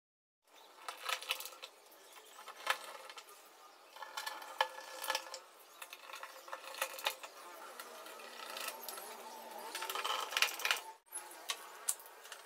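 Scattered light clinks and sharp clicks of small hard objects, a dozen or so spread irregularly, with a thin hiss between them.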